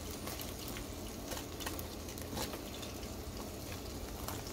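Hot breaded chicken sizzling and crackling softly in a pulled-out air fryer basket, over a steady low hum, with a few small clicks as a knife probes the meat.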